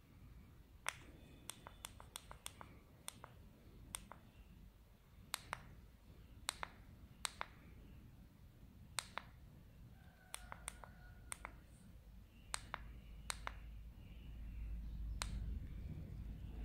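Sharp plastic clicks of an e-bike LCD display's push buttons pressed one by one, irregularly and sometimes in quick runs, as the display is stepped through its settings menu.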